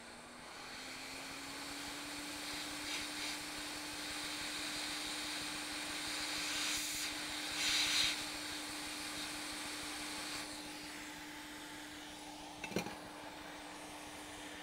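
Hot air rework station blowing on a laptop motherboard. Its fan whine rises in pitch as it spins up, then holds steady under a hiss of air. About ten seconds in the hiss drops away while the fan keeps running, and a couple of sharp clicks come near the end.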